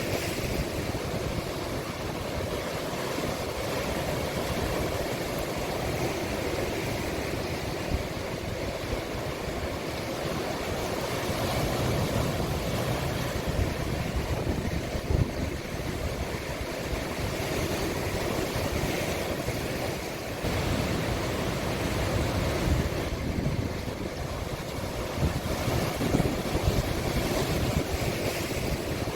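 Sea waves breaking and washing in a cove in a continuous rush that swells and eases every few seconds, with wind buffeting the microphone.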